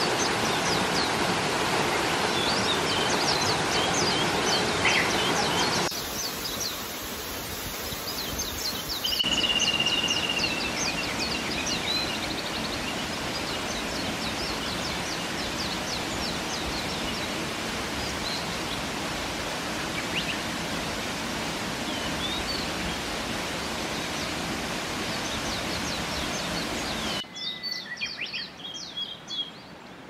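Steady rush of falling water from a mountain waterfall, with small birds chirping over it. About three seconds before the end the water sound drops away sharply, leaving the bird calls over a quiet background.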